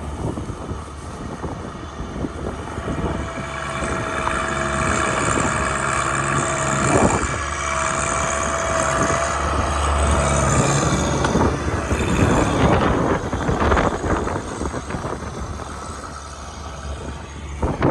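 City street traffic: a large motor vehicle's engine running close by, with steady street noise, growing louder toward the middle.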